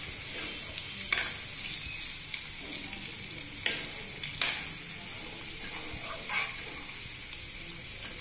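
Beaten egg sizzling in a steel kadhai while a steel spoon stirs it, with a steady frying hiss and a handful of sharp scrapes and clinks as the spoon hits the pan.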